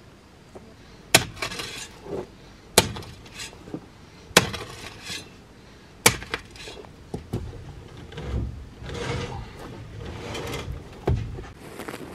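A long-handled hoe chopping into hard, stony soil four times, about a second and a half apart, with dirt and debris scattering after each strike. This is followed by a few seconds of scraping and rustling in the loose earth.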